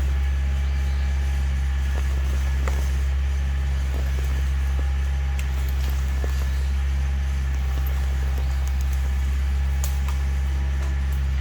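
Kioti tractor's diesel engine running at a steady speed with a deep, even hum, with a few faint clicks over it.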